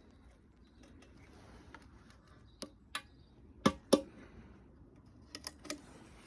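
A handful of short, sharp clicks or taps over a faint background, two louder ones close together a little past the middle and a quick cluster of small ones near the end.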